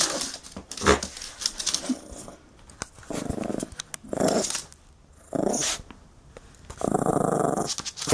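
Small dog growling in play while worrying a knitted toy: four short growls, the last and longest about a second, after some rustling and clicks from the toy being handled.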